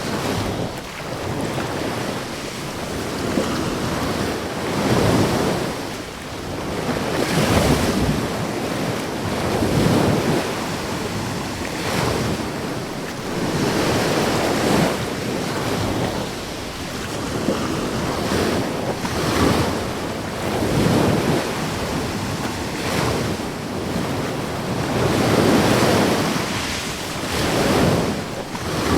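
Ocean waves breaking one after another: a continuous rush of surf that swells and falls back every two to three seconds.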